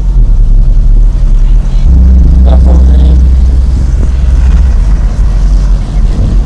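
Very loud car-audio subwoofer bass playing. A deeper, stronger bass note comes in about two seconds in and holds for about three seconds.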